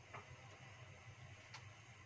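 Near silence: a faint steady low hum with two faint ticks about a second and a half apart, as a wok with a little oil heats on the stove.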